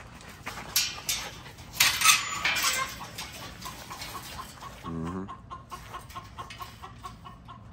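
Wire-panel dog kennel rattling and clanking as its gate is handled, with several loud metallic clatters about a second to three seconds in. Chickens cluck in the background.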